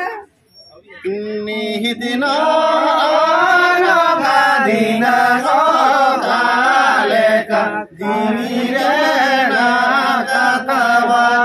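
Several men chanting a song together in one melody. The chant starts about a second in, breaks off briefly near eight seconds, then resumes.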